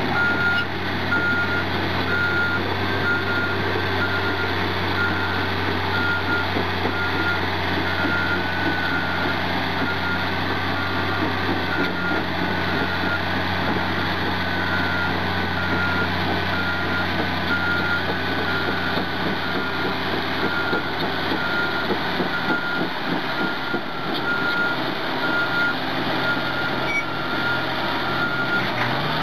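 Caterpillar D11N bulldozer's backup alarm beeping in a steady on-off pattern as the dozer travels in reverse, over the continuous running of its Cat C27 V12 diesel engine. The beeping stops near the end.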